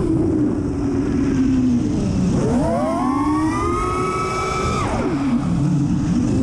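FPV quadcopter's brushless motors and propellers whining over wind rush, heard from the onboard camera. The whine drops away twice as the throttle is cut, a little past two seconds and about five seconds in, and climbs back up in between as the throttle is opened again.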